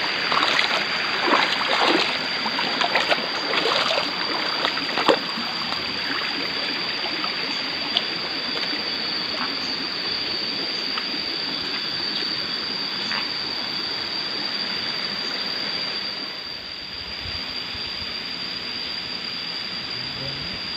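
River water running steadily, with a steady high-pitched whine above it and a few sharp clicks in the first five seconds. The water sound drops a little about sixteen seconds in.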